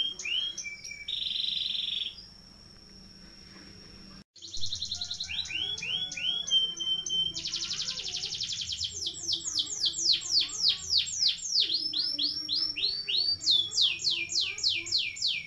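Domestic canary singing in long rolling tours: rapidly repeated falling whistles, several a second, broken by a short quieter pause about two to four seconds in.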